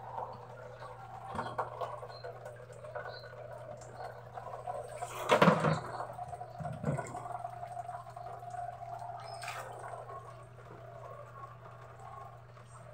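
Rain falling and water running and dripping on a wet concrete yard. About five seconds in there is a louder rush of water, and a smaller one about a second and a half later.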